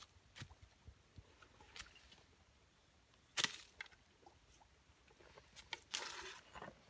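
Footsteps on dry leaf litter, with one sharp snap about three and a half seconds in and a crackling rustle of dry leaves near the end as a green coconut is set down on them.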